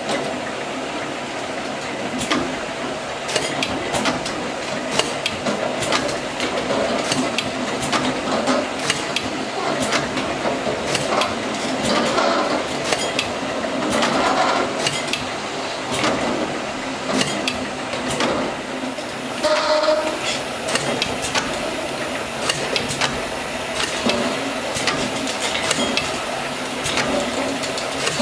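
LAB8501 can labelling machine running: a steady mechanical hum with frequent, irregular clinks and clicks as aluminium cans knock together and against the guide rails on the rotary tables and conveyor.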